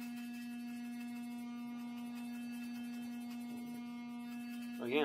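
Corded electric hair clippers running with a steady, even hum as they trim short hair at the side of the head.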